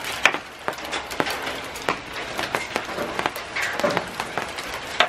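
Hail falling: many irregular sharp ticks of hailstones striking the canopy overhead, over a steady hiss of falling precipitation.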